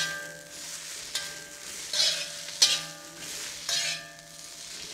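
Rice noodles and egg sizzling in a hot wok as a metal spoon stirs and tosses them. The spoon scrapes and strikes the wok several times, each clank ringing briefly.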